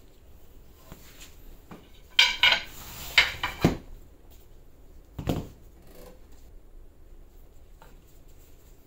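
Wooden pool cue shafts and cue parts knocking and clinking against each other as they are handled. A quick cluster of loud knocks, some briefly ringing, comes about two to four seconds in, then one more knock about five seconds in, with a few light taps around them.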